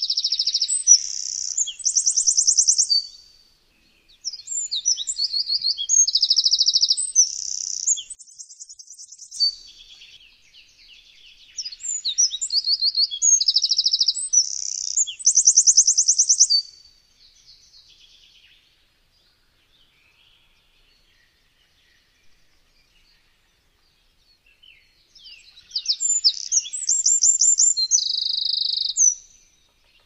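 Eurasian wren singing. It gives four bursts of fast, high song made of rapid trills and notes, each a few seconds long, and a longer pause comes before the last one near the end.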